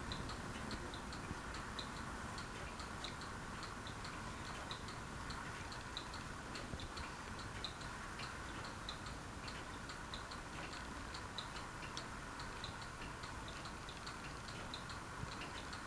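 Faint ticking, about two or three light ticks a second, over a low steady hum.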